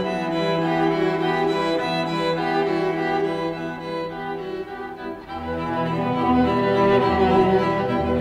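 Film score of sustained bowed-string chords. About five seconds in, after a brief dip, a deeper bass line comes in and the music swells.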